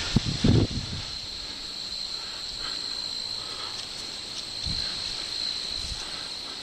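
Crickets trilling steadily on one high note over a light outdoor hiss, with a few low thumps in the first second.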